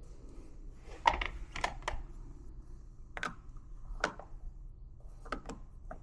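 Light clicks and knocks of small hard parts being handled and set down, in irregular groups: four quick ones about a second in, two single knocks, then a fast cluster near the end.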